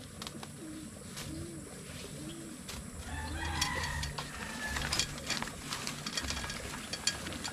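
Birds calling: a low call repeated about once a second, and a longer, higher call about three seconds in.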